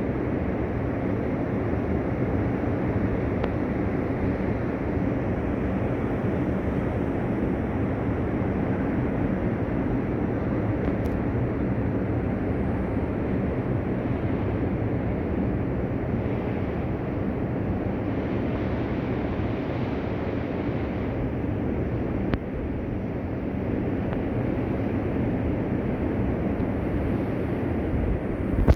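Rough sea surf: heavy waves breaking as a continuous, low rushing noise, with wind on the microphone.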